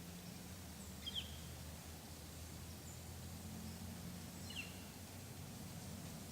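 Two short bird calls, each a quick downward-sliding chirp, about a second in and again near the middle, over a steady low background rumble.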